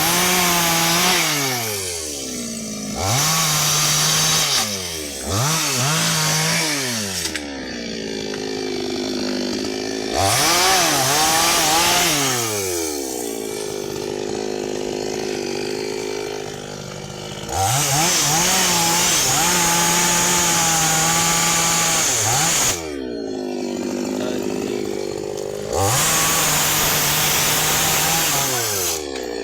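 Small two-stroke chainsaw revved to full throttle in about six bursts of one to five seconds, each time holding a high steady note and then winding back down to idle; the longest burst runs from about 17 to 23 seconds in.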